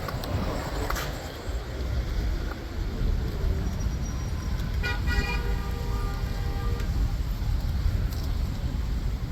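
A vehicle horn sounds once for about two seconds, about five seconds in, over a steady low rumble of street traffic.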